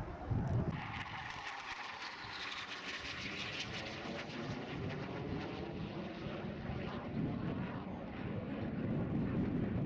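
Fixed-wing aircraft flying past: a steady rushing engine noise that comes in sharply under a second in, its tone slowly shifting as the aircraft moves across.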